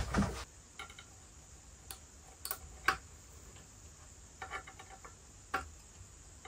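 Scattered light clicks and ticks of tweezers tapping and scraping on a motherboard's heatsink and its plastic cover while picking at a stuck scrap of protective film, after a brief rustle of handling at the start.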